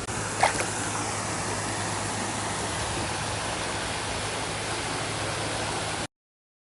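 Steady rush of flowing river water, with a brief sharp sound about half a second in. It cuts off abruptly about six seconds in.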